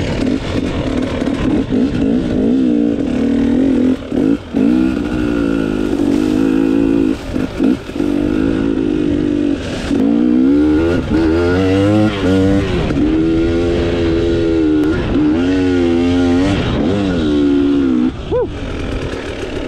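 KTM 300 XC-W two-stroke dirt bike engine being ridden. The revs hold fairly steady with a few brief throttle-offs, then rise and fall in repeated swells from about halfway through.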